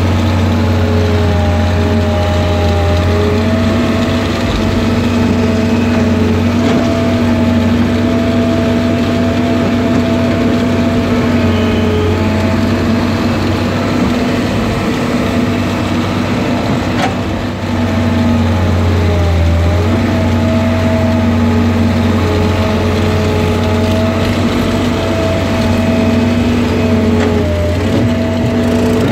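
Excavator's diesel engine running steadily, heard from inside the cab: a constant low hum with a whining tone over it that dips in pitch briefly a couple of times as the arm and bucket work. A single sharp click about two-thirds of the way through.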